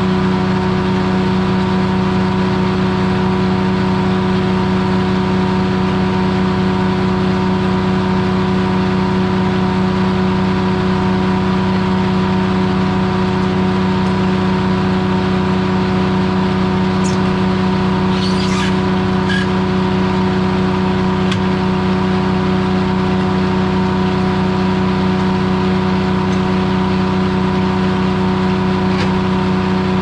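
Corley circle sawmill running steadily at one constant pitch and not cutting. A few brief knocks come about halfway through and once near the end.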